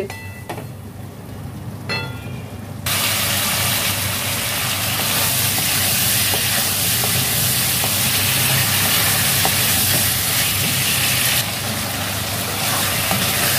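Pointed gourd and potato pieces in spiced oil sizzling in an aluminium kadai while a wooden spatula stirs and scrapes them. The masala is being fried down until its raw smell goes. The sizzle comes in suddenly and loud about three seconds in, after a quieter start.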